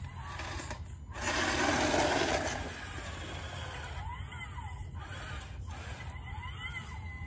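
Electric drive and hydraulic pump motors of a 1:14 scale RC Caterpillar 988 wheel loader whining, rising and falling in pitch twice, over a steady low hum. A rough rushing noise comes about a second in.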